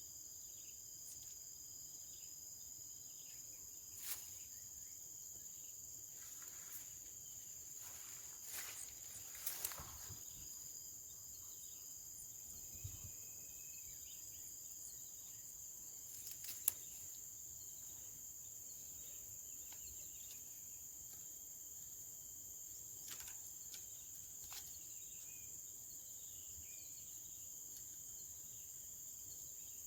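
A steady, faint, high-pitched chorus of insects, several shrill tones sounding at once without a break, with a few scattered clicks and knocks, the sharpest about seventeen seconds in.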